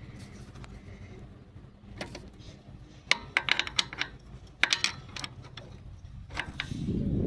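Quick clusters of sharp metallic clicks and clinks from an adjustable crescent wrench being worked onto the mini bike's oil drain plug, followed near the end by a low rumble.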